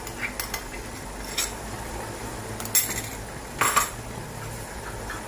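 A utensil clinking a few times against a stainless steel cooking pot, the loudest clink about three and a half seconds in, over a faint steady sizzle of meat, onion and tomato paste frying.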